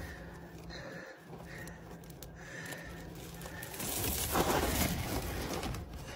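A hand stirring through loose ring cereal in a plastic bag: rustling plastic and rattling cereal, louder about four seconds in.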